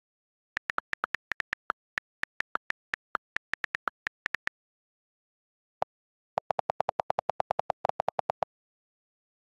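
iPad on-screen keyboard key clicks: a run of irregular taps as letters are typed, then after a pause one click and a fast, even run of lower-pitched clicks as the delete key repeats, erasing the text.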